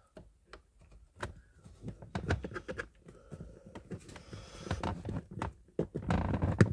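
Skoda Superb II hood release handle being yanked hard against a binding cable: a rapid run of plastic clicks, knocks and scrapes, denser and louder toward the end. The clicking fits the handle's plastic teeth skipping and stripping.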